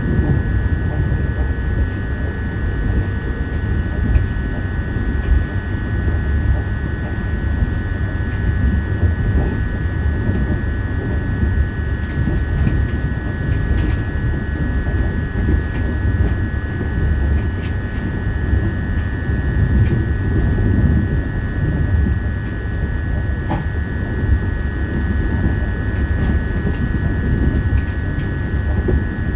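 Cabin noise of a Škoda Vagonka EJ575 electric multiple unit running at speed: a steady low rumble of the wheels on the rails, with a steady high tone held over it.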